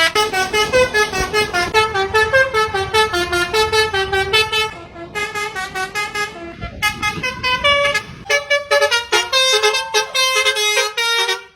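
Basuri-type telolet bus horn playing a fast tune of short pitched notes, several a second, with brief breaks about five and seven seconds in.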